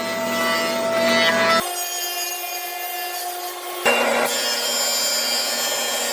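A power tool cutting wood: a steady motor whine over a rasping cutting noise. The pitch and character change abruptly about one and a half seconds in and again about four seconds in.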